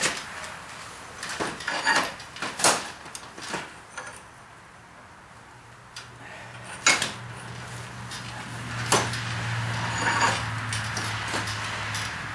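Metal clunks, knocks and scraping as the long screw of an old blacksmith vise is handled and worked, several sharp knocks spread through it. A low steady hum comes in about halfway through.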